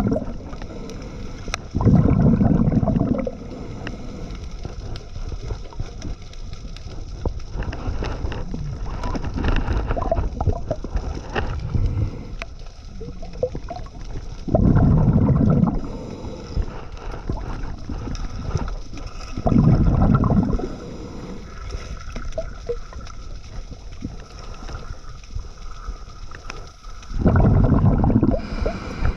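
Scuba diver breathing underwater through a regulator: four loud bursts of exhaled bubbles, each about a second long and spaced irregularly, with quieter bubbling and faint clicks between them.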